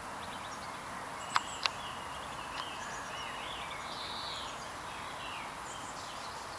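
Garden birds singing and chirping over a steady outdoor hiss, with two sharp clicks in quick succession about a second and a half in.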